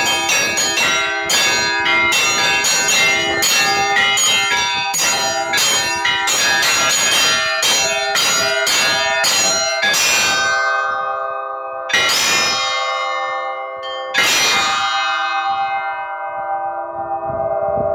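Russian Orthodox church bells rung by their clappers: quick strikes on several bells of different pitches for about ten seconds, then two single strikes about two seconds apart, each left to ring out.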